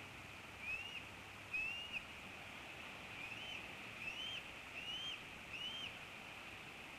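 A bird calling: six short, high notes, each rising and then dropping. The first two come about a second apart, and the last four follow in a quicker run. A steady hiss lies underneath.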